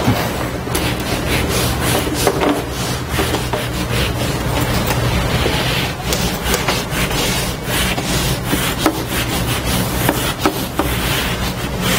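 A felt whiteboard eraser rubbing back and forth across a whiteboard in quick repeated strokes, wiping the board clean, over a steady low hum.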